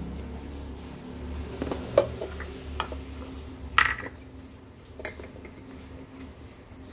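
A few sharp clicks and knocks of hard plastic as an opened LED bulb and a plastic lamp holder are handled and fitted together, the loudest a ringing clack about four seconds in.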